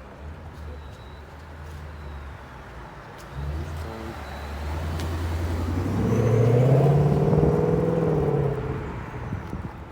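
Big V8 engine of a passing car accelerating. It rises in pitch and grows louder to a peak about two-thirds of the way through, then fades as it drives on.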